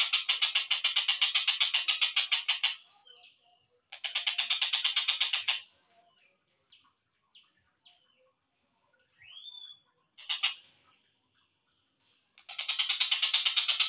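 Slowed-down recording of a tengkek buto kingfisher calling: fast runs of harsh, evenly repeated notes in a rattling trill, with a few short chirps and a rising whistle in the quieter gap between runs.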